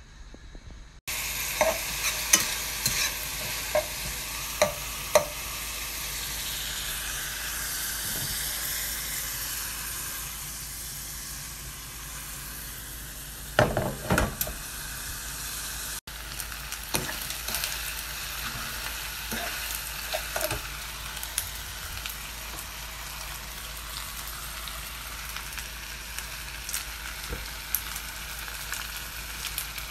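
Sliced vegetables and then fettuccine sizzling in a frying pan: a steady hiss that starts abruptly about a second in, with a utensil clinking and scraping against the pan every few seconds as the food is stirred.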